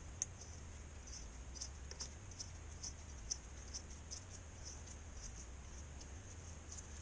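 Faint, irregular small clicks and scratches, a few each second, of a gloved hand turning and seating the water-in-fuel sensor on a new diesel fuel filter, over a low steady hum.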